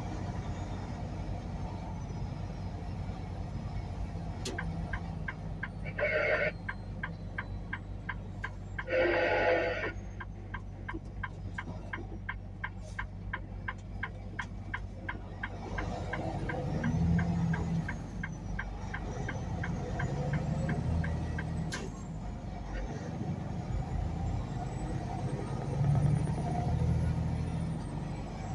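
Semi truck running down the highway, heard from inside the cab: a steady low engine and road hum. A fast, regular ticking runs for about ten seconds in the middle, and two brief louder sounds come around six and nine seconds in.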